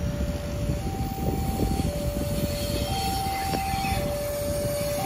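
KRD Bandara BIAS diesel railcar train rolling past with a steady low rumble and a couple of sharp wheel clicks. Over it the level-crossing alarm sounds: two tones, lower and higher, alternating about once a second.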